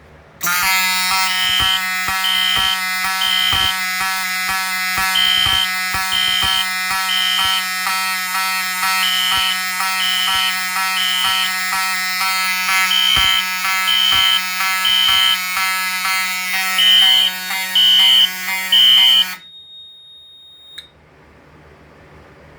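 Fire alarm system in alarm, set off by pressing a smoke detector's test button: a loud continuous buzzing horn with a high beeping tone over it in repeating groups of three, the temporal-3 evacuation pattern. It starts about half a second in and cuts off suddenly a few seconds before the end.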